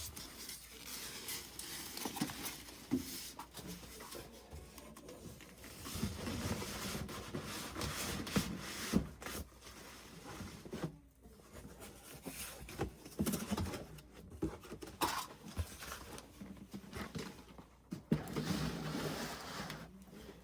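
Styrofoam packing and cardboard rubbing and scraping against a wrapped PC case, with scattered knocks and taps as it is handled and packed.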